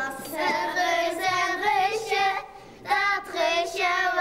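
A few young girls singing a Dutch children's song together, in phrases of held notes with short breaths between them.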